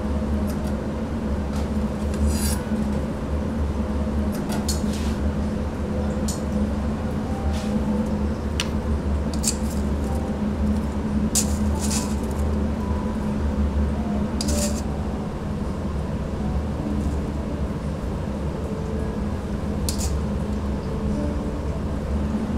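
Utensils and dishes clinking and scraping now and then over a steady low hum, the working sounds of steak being cut and served. The sharpest clinks come about a dozen seconds in and again near the end.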